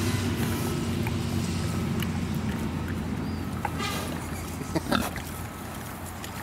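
Large pigs eating strawberries: chewing and smacking, with short grunts or snorts around four and five seconds in, the loudest near five seconds. A steady low hum underneath fades away.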